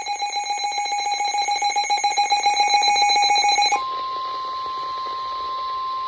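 Emergency alert tones: a rapidly pulsing electronic alarm beep until almost four seconds in, then switching to a single steady, quieter tone, the 1050 Hz warning alarm tone of NOAA Weather Radio that precedes a National Weather Service warning message.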